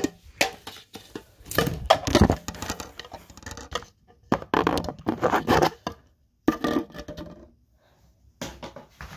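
Rustling, scraping and knocking of objects being handled close to the microphone, in irregular bursts with short pauses between them.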